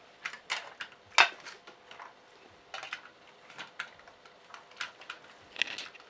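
Irregular sharp clicks and light knocks of large plastic building-brick pieces and toy figures being handled and set onto a toy train, the loudest about a second in.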